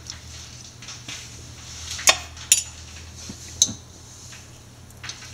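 A spoon clinking against a dish three times as salt is spooned out for the squid, over a faint steady low hum.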